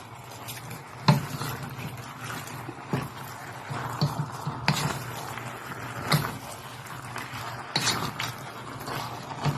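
A cooking utensil stirring chicken in a pot, with irregular knocks and scrapes against the pot, over the steady sizzle of chicken sautéing on high heat.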